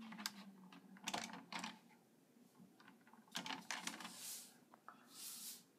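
Faint scattered clicks and rustling, with two soft hissing whooshes near the end.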